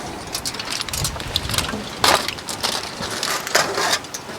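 Browned chicken thigh pieces being put back into a hot paella pan of tomato sauce: a run of clicks and knocks from utensils and pan over a crackling sizzle, with louder knocks about two seconds in and again a second and a half later.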